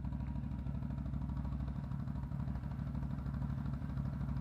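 CFMoto CForce 800 ATV's V-twin engine idling steadily with an even, fast low pulse.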